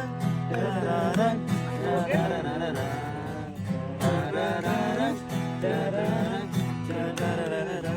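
A song: a voice singing over acoustic guitar.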